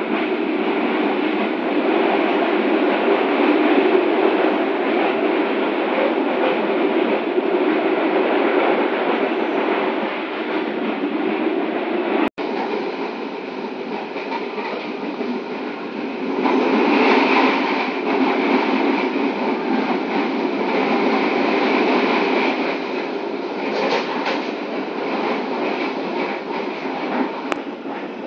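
Running noise inside a moving passenger train coach: a steady rumble of wheels on the rails, louder for a stretch past the middle, with a brief break about twelve seconds in.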